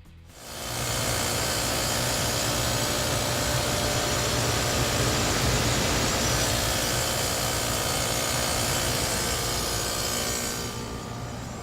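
Steady loud rushing noise over a low machine hum, starting abruptly and dropping away near the end while the hum carries on.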